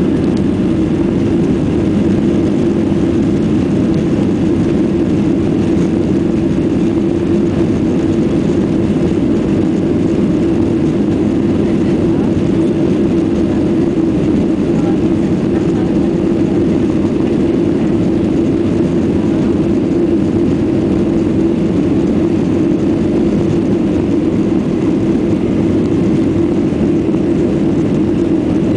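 Steady cabin noise inside a Boeing 737-800 taxiing, its CFM56 turbofan engines running at low taxi power as an even, deep hum.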